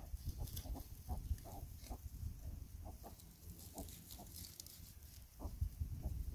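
Pigs giving short, irregular grunts while rooting and eating on the ground.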